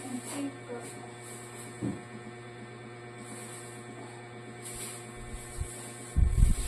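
Steady low electrical hum, with a few light clinks and knocks of plastic kitchenware being handled and set on shelves. Near the end comes a burst of loud low thumps.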